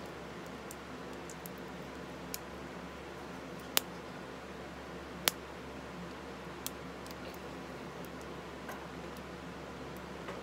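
Sharp clicks of a small plastic cosmetic jar being handled and its lid twisted, with two louder clicks about four and five seconds in, over a steady low hum.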